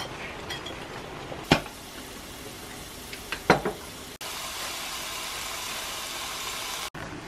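Pasta bubbling in a pan of boiling water, with two sharp knocks, then garlic, chicken and shishito peppers sizzling in oil in a frying pan: a steady hiss from about four seconds in.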